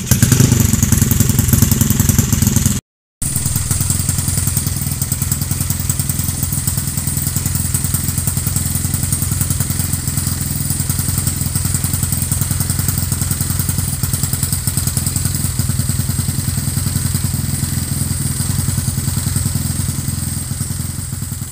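Motorcycle engine running steadily, with a rapid even pulsing, after a crankshaft replacement. It cuts out abruptly for a moment about three seconds in.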